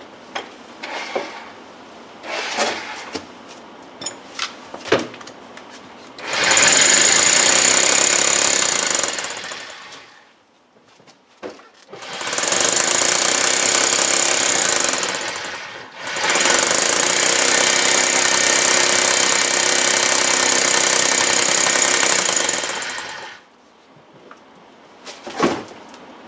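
Hammer drill with a 1-inch masonry bit boring into concrete block, run in three stretches of a few seconds each, the last and longest about seven seconds, with short knocks and clicks of handling between them.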